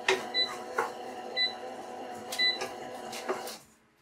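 Klarstein thermomix-style kitchen robot running its mixing blade at low speed with a steady hum, giving a short beep about once a second. It cuts off suddenly a little before the end. A few wooden-spoon knocks on a frying pan come in between.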